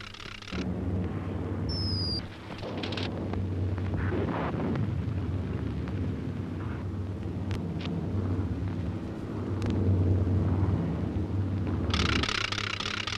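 A loud, continuous low rumble lasting about eleven seconds, with a brief high whistle about two seconds in and a short hiss near the end.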